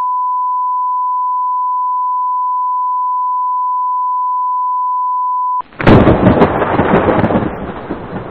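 A steady 1 kHz reference tone, a pure beep, holds for about five and a half seconds and then cuts off suddenly. A loud, dense rumbling noise with a few sharp cracks starts at once and slowly fades.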